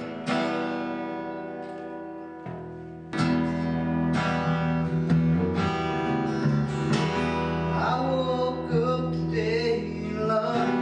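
Acoustic guitar strumming chords, growing louder and fuller about three seconds in.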